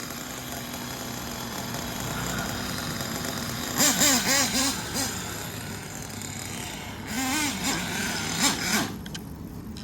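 Small nitro engine of a Kyosho Inferno Neo ST 3.0 RC truck running steadily, with two louder stretches about four and seven seconds in where its pitch warbles quickly up and down as the throttle is worked.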